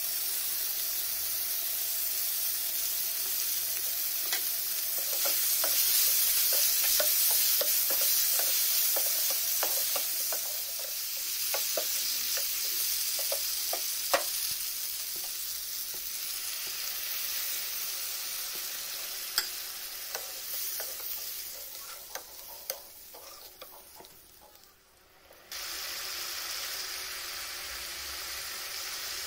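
Chicken, tomatoes and spices sizzling in a frying pan while a metal spatula stirs them, with many clicks and scrapes of the spatula against the pan in the first half. The sizzle dies down, then comes back suddenly near the end.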